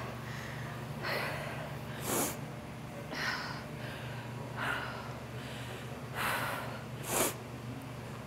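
A woman breathing hard from exercise, with short, sharp breaths about once a second over a steady low hum.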